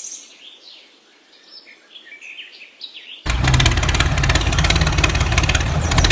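Faint bird chirps for about three seconds, then a loud engine-like machine sound cuts in abruptly and keeps running steadily, with a fast even pulse.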